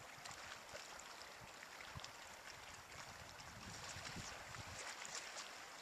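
Faint, steady rush of river water, with a few light clicks and knocks scattered through it.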